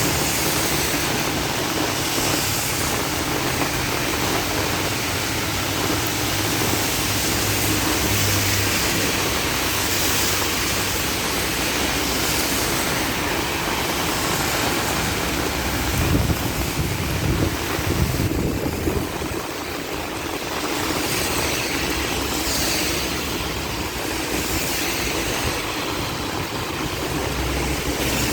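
Heavy rain pouring down steadily, a dense even hiss, with a low rumble coming and going beneath it and swelling briefly just past the middle.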